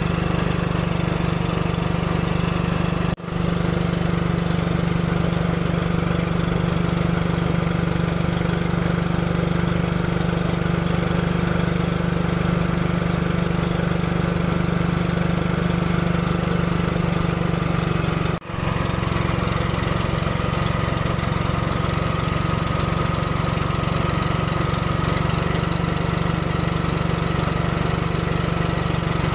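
Small motor of a wooden river boat running steadily under way, a constant even drone. It drops out very briefly twice, about three seconds in and about eighteen seconds in.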